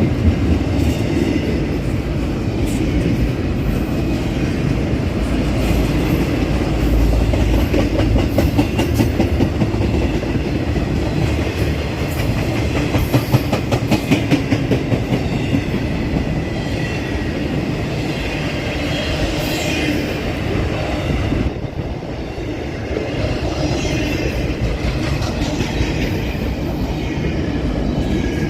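CSX intermodal freight train's cars rolling past with a steady rumble. The wheels clickety-clack rhythmically over the rail joints, most strongly about a third of the way in.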